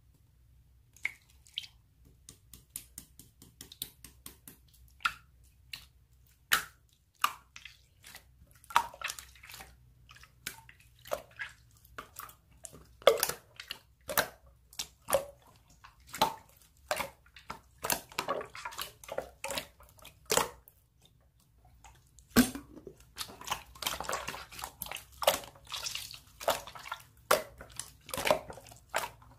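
Slime being squished and poked by hand, making a run of short wet clicks and pops at an irregular few per second. The pops grow denser in the last third.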